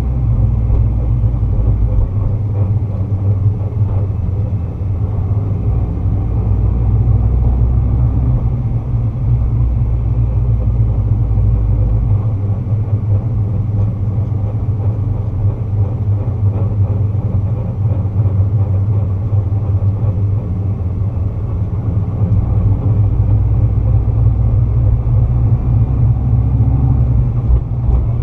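2009 Nissan GT-R running at low speed, with a steady low drivetrain and engine rumble. A deeper drone swells and fades every few seconds. This is the kind of on-and-off-throttle driving in which the owner hears a shuddering noise under engine braking.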